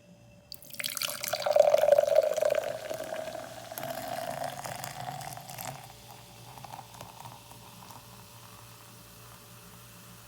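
Mountain Dew soda being opened: a sharp release just over half a second in, then carbonation hissing and fizzing that is loudest for a second or two and dies away about six seconds in.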